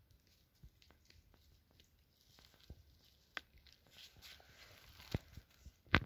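Dry pine needles and twigs crackling and snapping under hand and foot as scattered short clicks, with a few sharper snaps in the second half.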